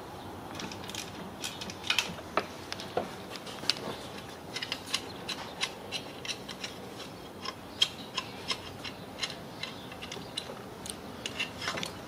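Hand ratchet with an 8 mm socket clicking in irregular short runs as small bolts are turned out of an engine plate.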